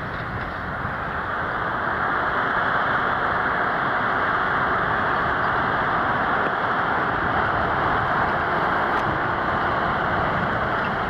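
Fendt tractor working in the field, its engine running steadily under load. It grows louder about two seconds in and then holds level.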